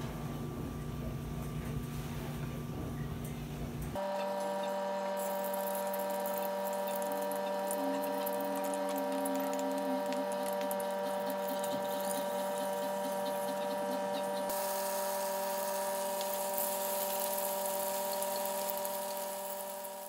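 Slabs of tofu frying in oil in a pan, a fine sizzle with small crackles, over a steady whine. The first few seconds hold only a low rumble.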